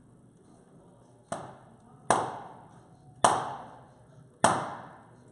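Four sharp knocks about a second apart, the first softer, each ringing out briefly: blows on an electronic device being taken apart on a table.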